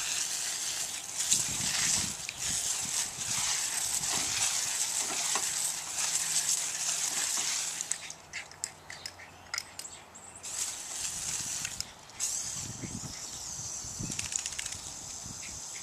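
Water spraying from a garden hose nozzle: a steady hiss of the jet and the spray hitting the grass. It cuts out about halfway through for a couple of seconds, then starts again.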